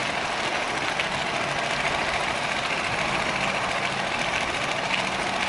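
Steady rolling noise of a bicycle being ridden along a gravel rail trail: tyre noise mixed with wind on the microphone.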